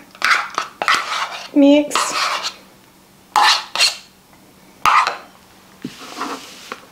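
A metal spoon scraping canned pumpkin purée out of a measuring cup and knocking against the cup and mixing bowl, in a series of short scrapes and clinks.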